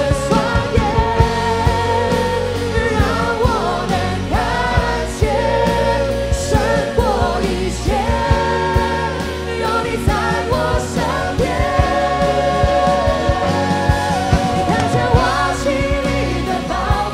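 Worship song: singing over instrumental accompaniment with a steady beat.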